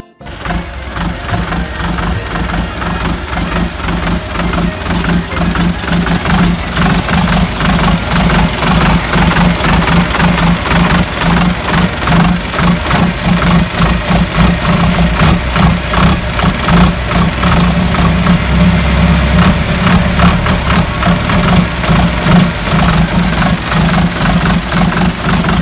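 An engine idling with a fast, even pulse and a strong low hum, growing louder over the first few seconds and then holding steady.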